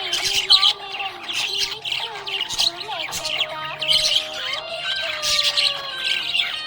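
A flock of budgies chirping and squawking rapidly and continuously, over background music with held, gliding notes.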